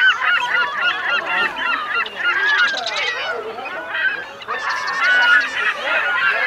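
A flock of birds calling over one another: many short, overlapping calls that rise and fall in pitch, with a brief lull a little past the middle.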